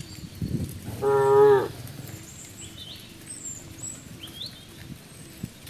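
A cow moos once, short and loud, about a second in. Birds chirp in the background.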